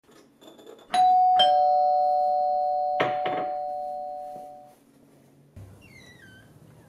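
Two-tone doorbell chime, a higher ding then a lower dong, ringing out and fading over about four seconds. A short noise breaks in about three seconds in, and a short falling chirp sounds near the end.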